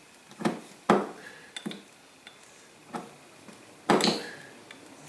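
Sharp metallic clicks and clacks from the action of an Iver Johnson Champion single-barrel break-open shotgun being cocked with an empty shell chambered, to test a freshly replaced ejector. About six separate clicks, the loudest a ringing clack about four seconds in.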